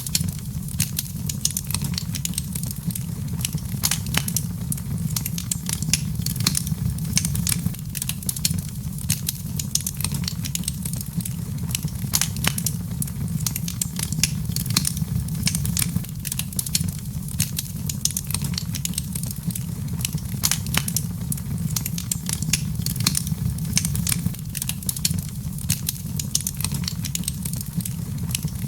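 Wood fire in a fireplace crackling: many sharp, irregular pops and snaps over a steady low rumble of flame.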